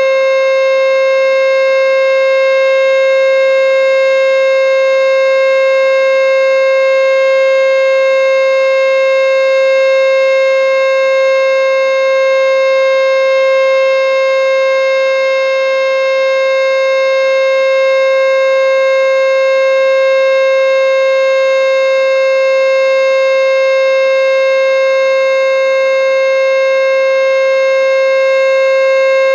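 American Signal T-121 outdoor warning siren sounding a loud, steady alert tone at one unchanging pitch, the full-alert signal of a nuclear plant siren test.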